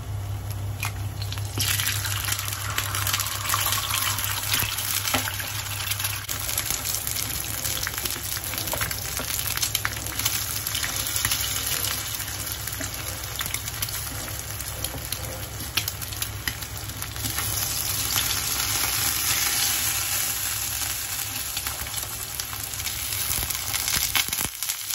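An egg and rounds of Japanese yam frying in hot oil in a pan: about two seconds in the sizzle jumps suddenly louder as the egg goes into the oil, then carries on as a steady sizzle, with a few light clicks of chopsticks against the pan.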